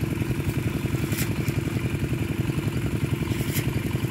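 A small engine running steadily at a fast, even chug, with two brief hisses over it, about a second in and near the end.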